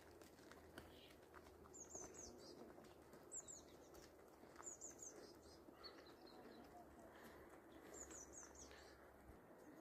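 Faint songbird calls: short bursts of three or four high, quickly falling notes, repeated about five times at irregular gaps, over a faint low hum.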